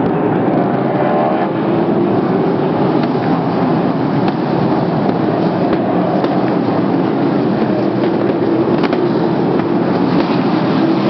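Sprint car V8 engines running during the race, a loud, steady engine din that never lets up.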